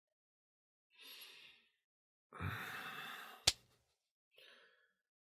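A man breathing out, then a long heavy sigh followed at once by a single sharp click, then a short breath near the end.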